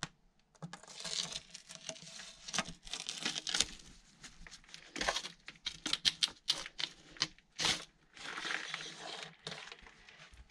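Plastic pipe being pushed and twisted by hand through a rough drilled hole in a stone wall, scraping and grating against the rock in irregular strokes with short sharp clicks and knocks, several of them between about five and eight seconds in.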